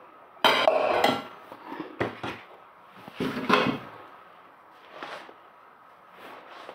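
Spatula scraping and stirring through a dry, crumbly panjeeri mixture in a frying pan, in several short bouts of scraping over the first four seconds, then fainter stirring.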